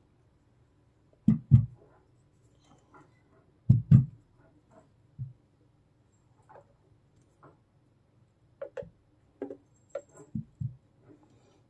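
Aluminium camera tripod handled and shifted on a cloth-covered table: two pairs of dull knocks as its feet bump down, then scattered lighter clicks and taps from its plastic head and legs as it is turned.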